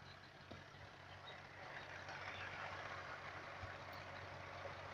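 Fiat 480 tractor's diesel engine idling faintly with a steady low hum.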